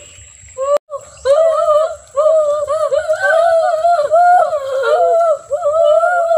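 A high-pitched voice humming and vocalizing without words, its pitch wavering up and down in a sing-song way, with short pauses. A sharp click and a brief dropout come just under a second in.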